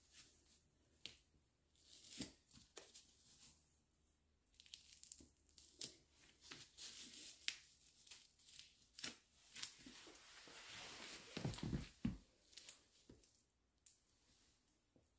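Hook-and-loop (Velcro) straps on a fabric hiking sandal being peeled open and pressed shut again and again: a run of short, rasping rips. A few dull knocks come about three-quarters of the way through.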